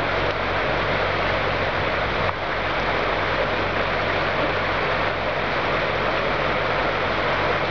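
A motor vehicle engine idling as a low, even hum under a steady rushing hiss of rain and water.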